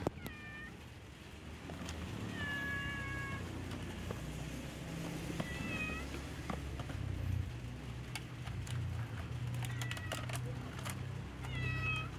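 Cat meowing about five times, short high calls with one longer one a couple of seconds in, over a low steady rumble.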